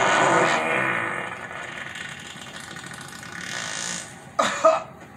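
A long, hissing fart sound effect that starts suddenly and tails off over about four seconds, followed near the end by a short cough. Both are heard through a TV's speaker.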